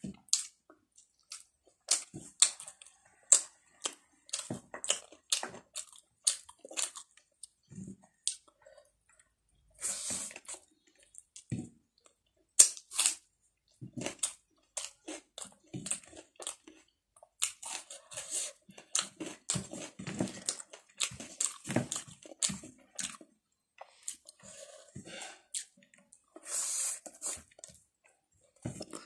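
Close-miked eating of rice and vegetables by hand: wet chewing, lip smacks and small crunches in quick, irregular clicks, with a few longer hissing mouth sounds.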